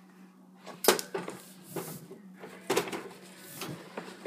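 Irregular clicks and knocks of a hanging chew toy's clip and a hand working against the wire bars and plastic lid of a Critter Trail hamster cage, about seven in all, over a steady low hum.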